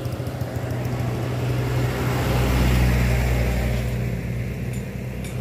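A motor vehicle's engine and tyres passing on the road close by, swelling to a peak about halfway through and then fading.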